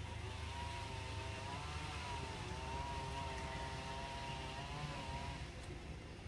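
A motor engine running steadily over a low rumble, its pitch wavering gently up and down, fading out about five seconds in.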